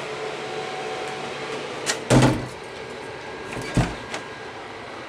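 A door on the lavatory of a double-decker coach being handled: a small click, then a louder knock as it shuts about two seconds in, and a shorter thump near four seconds, over a steady hiss.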